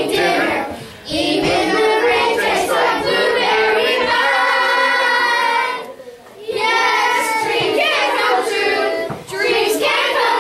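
Children singing as a group on stage, with a long held note in the middle and short breaks for breath just after a second in and about six seconds in.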